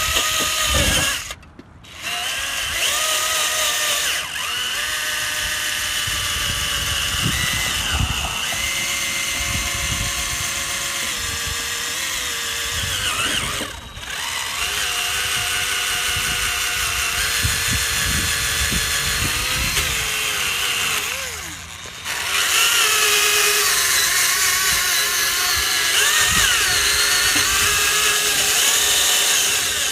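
Electric drill spinning a 500-grit sanding disc against a plastic headlight lens, its motor whine wavering in pitch as the load changes. It stops briefly about a second and a half in, again around fourteen seconds, and again around twenty-one seconds.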